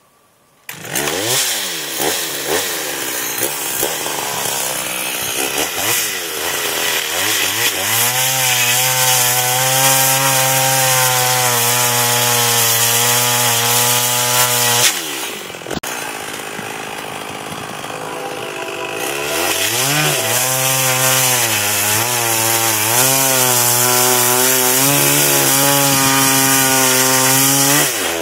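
Large chainsaw coming in suddenly about a second in, revving unevenly, then held at full throttle while cutting wood. About halfway it drops back towards idle, then revs up again and runs on at high speed, its note sagging slightly under load in the cut.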